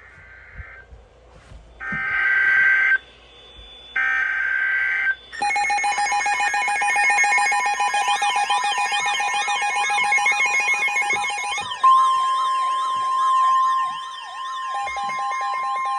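NOAA Weather Radio emergency alert signalling a new severe thunderstorm warning. It opens with three short warbling data bursts, the SAME header. Then comes a loud electronic alarm of several steady tones with a wailing, siren-like rise and fall, and about twelve seconds in a single steady tone of about 1 kHz, the 1050 Hz warning alarm tone, takes over beneath the wail.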